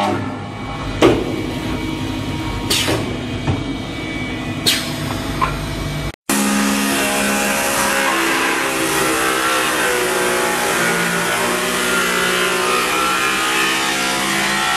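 Automatic wood copy lathe running at high speed, its knives cutting spinning wooden handle blanks into shavings, with brief louder cutting strokes about one, three and five seconds in. About six seconds in the sound cuts off for a moment, and a larger copy lathe for long posts takes over with a louder, steady noise.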